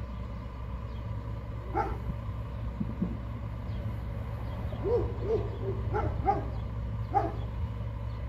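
Diesel engine of a WhiteGMC Amrep Octo side-loader garbage truck idling some way off as a steady low rumble. Short animal calls sound once about two seconds in and then several times in quick succession in the second half.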